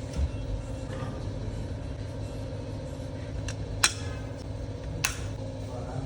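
Steady low hum of running workshop machinery, with two short sharp clicks about four and five seconds in.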